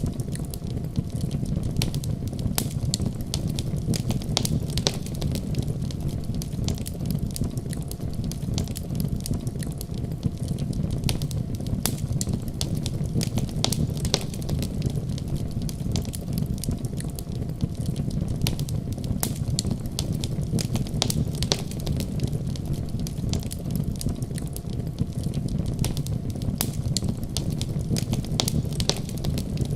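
Wood fire burning in a fireplace, crackling with frequent irregular sharp pops over a steady low rumble.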